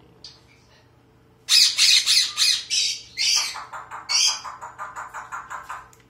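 Black-capped conure (rock conure) calling: a run of loud, harsh calls starting about a second and a half in, then a quicker string of shorter repeated calls, about six a second, fading toward the end.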